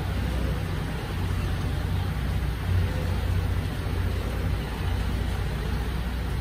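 Diesel engine of a Mercedes-Benz Arocs rear-loading garbage truck running with a steady low rumble.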